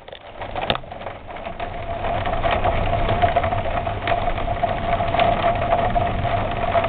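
A steady humming drone with a held, even whine over it. It builds up about a second in and then holds level. This is the unexplained sound that follows a blue flash during the thunderstorm.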